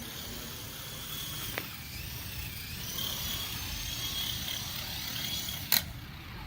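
Remote-control helicopter running: a steady rotor hum with a faint high motor whine that wavers in pitch. There is a short click about one and a half seconds in and a louder one near the end. Its rudder is not responding to the controls.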